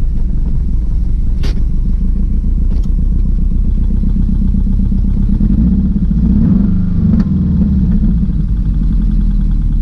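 Subaru WRX's turbocharged flat-four engine running hard, its pitch shifting about two-thirds of the way through, with two sharp clicks, one early and one near the end.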